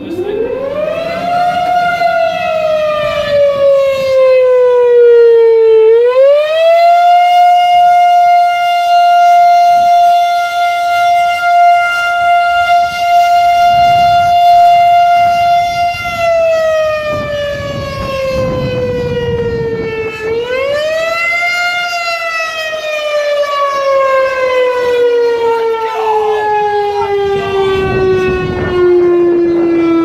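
Federal Signal STH-10A electromechanical fire siren being test-sounded at one pitch. It winds up fast and then sags. About six seconds in it climbs back up and holds a steady pitch for about ten seconds. It sags and climbs again once more, then begins a slow wind-down near the end.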